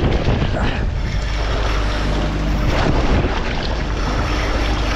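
Wind buffeting the microphone and sea washing against the boat's hull, over a steady low machinery hum from the vessel.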